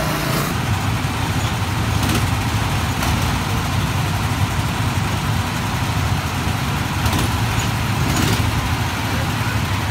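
Go-kart small gasoline engines running at a steady low rumble, with a few short clatters.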